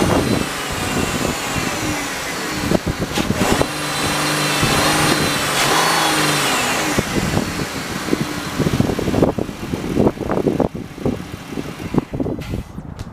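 2017 Ram ProMaster 1500's 3.6-litre V6 petrol engine revved and falling back to a steady idle. From about nine seconds in, irregular knocks and rustling of wind on the microphone sit over the idle.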